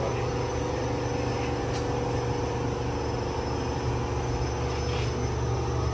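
Steady hum inside an airport express train carriage, a constant low drone with several steady higher tones.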